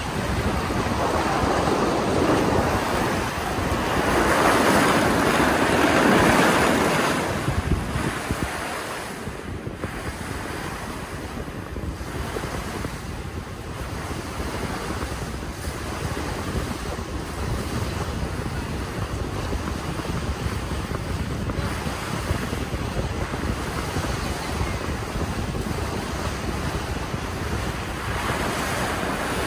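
Wind buffeting the microphone over the rush of water along a moving ferry, swelling louder twice in the first seven seconds, then steadier.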